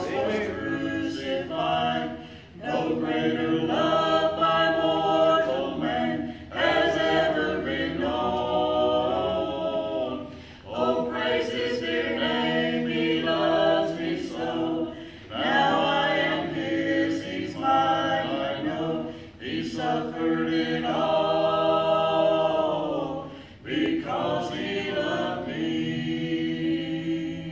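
Mixed gospel quartet, two women and two men, singing a hymn in harmony, in phrases of a few seconds with short breaks between.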